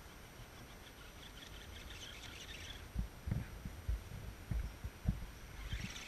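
Wind buffeting the microphone: irregular low thumps starting about halfway through, after a brief faint hiss.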